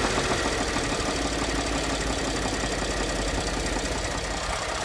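Ford 3.5-litre EcoBoost twin-turbo V6 settling back to idle after being revved, easing slightly in loudness, with a knock that the owner traces to where the crankcase meets the transmission and that appears only once the engine is warm.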